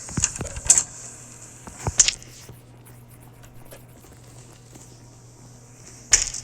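A low steady hum, which the uploader takes to be a refrigerator running, with a few sharp clicks and knocks, one about two seconds in and another near the end.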